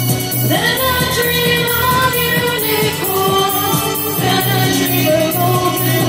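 A woman singing live into a handheld microphone over dark-wave electronic backing music with a steady beat, holding long drawn-out notes with a slide up in pitch about half a second in.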